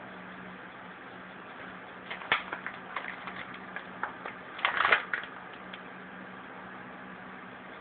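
A few scattered bursts of light clicking and clattering, the loudest about five seconds in, over a steady low hum.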